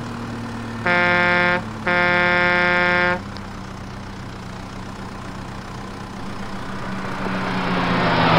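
Truck horn honking twice, a short honk and then a longer one, over a steady low engine hum. A rush of noise swells near the end.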